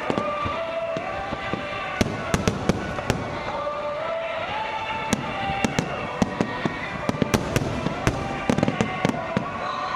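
Fireworks display: sharp bangs and crackles going off irregularly throughout, over a steady background and a stepped melody of music.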